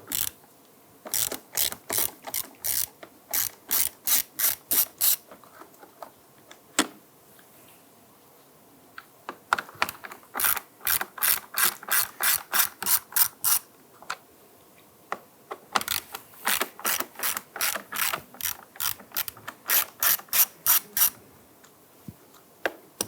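A hand ratchet with a T20 Torx bit clicking as it backs out the three screws holding an interior door handle: three runs of quick, even clicks at about three a second, with short pauses between them.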